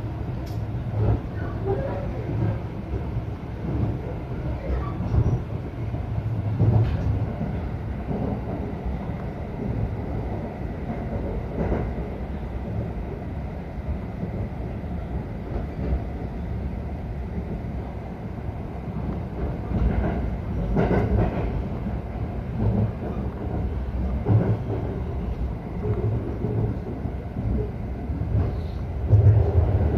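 Ride inside a local electric train running along the line: a steady low rumble with occasional wheel knocks over the rail joints, growing louder near the end.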